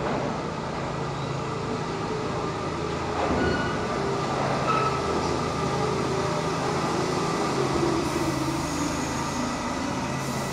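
R68 subway train pulling into an underground station, its wheels and running gear rumbling steadily on the rails. Over the last few seconds a whine falls in pitch as the train slows alongside the platform.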